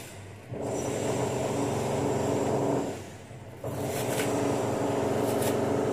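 A steady engine-like drone that drops out twice for a moment. Under it, a few faint sharp taps of a chef's knife chopping onion on a plastic cutting board.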